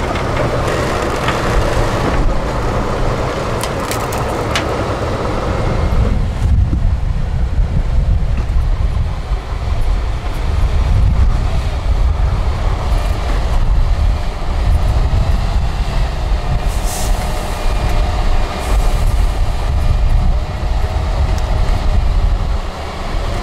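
Heavy 8x8 off-road truck's diesel engine working hard under load as the truck crawls over rough ground, with a deep rumble that gets much heavier about six seconds in.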